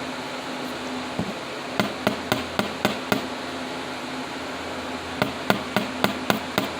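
Light, quick taps of a flat-ended steel block on paperclip wire, knocking the bends out to straighten it: one tap, then two runs of about six taps each, roughly four a second. A steady hum runs underneath.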